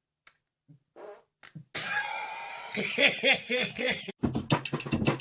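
A long, loud fart starting a little under two seconds in, with a wobbling pitched tone. About four seconds in it breaks into a fast sputtering run of short pops.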